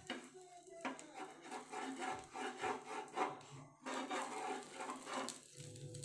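A rasping, scraping sound from egg-coated bread cooking on a hot tawa, broken by short pauses about a second in and again near four seconds.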